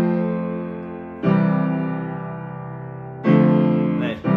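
Piano playing slow block chords, each struck and left to ring and fade: a new chord comes about a second in, another about three seconds in, and a third just before the end.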